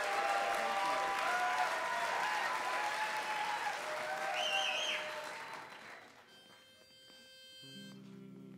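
Audience applauding, with one sharp whistle about four and a half seconds in; the clapping dies away around six seconds in. Near the end a pitch pipe sounds one steady note, giving the barbershop quartet its starting pitch.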